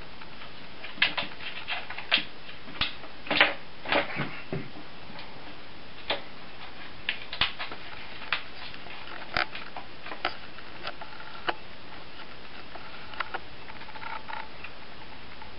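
Irregular plastic clicks and rattles from a kitten batting a ball-in-a-track cat toy: the ball knocking around the circular plastic track and paws and claws tapping the plastic. The clicks come thick in the first few seconds, then sparser.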